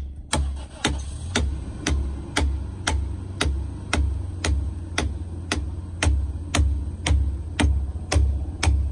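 Hand adze chopping into the cedar hull of a dugout canoe, shaping the outside: a steady run of sharp chopping strikes, about two to two and a half a second, each with a low thud.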